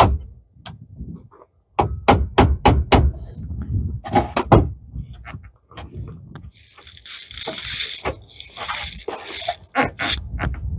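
A mallet striking a wood block held against the top of a UTV door frame, tapping the door into alignment: a quick run of about five blows about two seconds in and a few more around four seconds. After that comes a few seconds of rustling handling noise, with a couple of clicks near the end.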